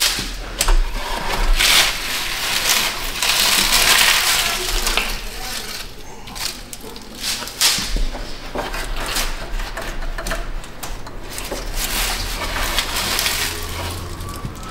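Hands working parts loose around a car's radiator: rustling and scraping with scattered light metallic clinks and knocks.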